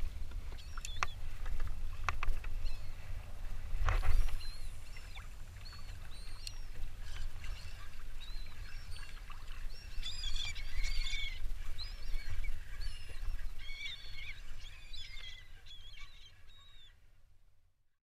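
A flock of seabirds calling over open water, many short high chirping calls overlapping, busiest in the second half. Wind rumbles on the microphone throughout, with a few knocks and a thump in the first four seconds, and everything fades out near the end.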